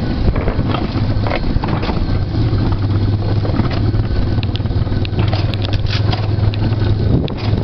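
Alpine coaster sled running fast down its steel tube rails: a steady low rumble from the wheels with scattered clicks and rattles.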